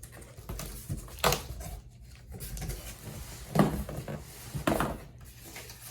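A cardboard shipping box and its contents being handled and unpacked: rustling, with three sharper knocks, about a second in, past the middle, and near the end.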